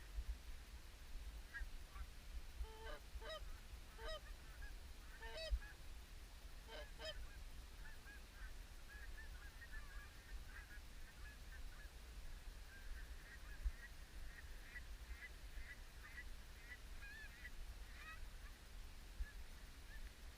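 Canada geese honking: several separate, clearer honks in the first seven seconds or so, then a long run of fainter, higher calls as a flock keeps calling. A low rumble runs underneath.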